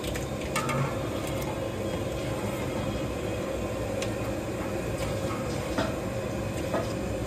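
A steady low rumble with a few faint clicks and soft knocks as cooked chicken pieces are laid by hand into gravy in a large aluminium pot.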